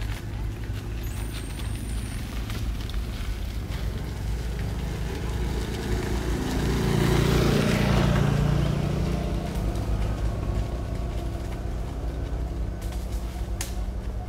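A motor vehicle passing by, its engine sound swelling to a peak about halfway through and then fading, over a steady low rumble.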